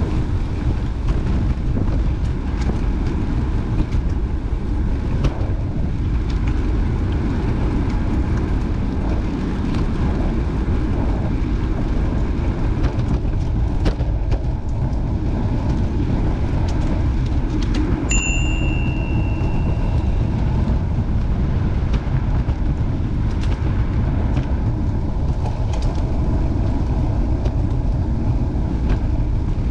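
Wind buffeting the microphone in a steady, heavy low rush, from riding into a headwind. About eighteen seconds in comes a single short bell-like ring that dies away over a second or so.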